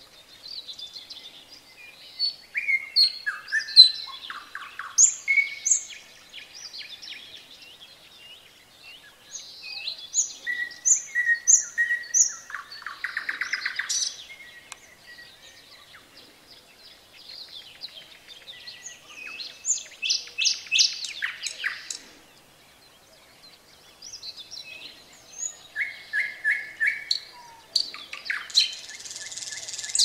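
Nightingale singing in separate phrases with pauses of a second or two between them. The phrases mix clear whistles, fast runs of repeated notes and dry rattling trills.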